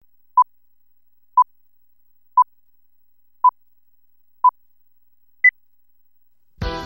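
Time-signal pips: five short electronic beeps at one pitch, one a second, then a sixth beep pitched higher, the countdown pattern of a radio hourly time signal. Music with a beat cuts in near the end.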